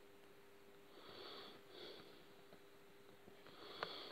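Near silence: two soft nasal breaths, about a second apart, over a faint steady hum, with a couple of light clicks near the end.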